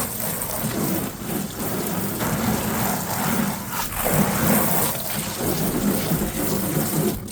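Garden hose spraying water hard onto a surface, a steady splattering rush, used to try to blast sticky chicken droppings off the brooder.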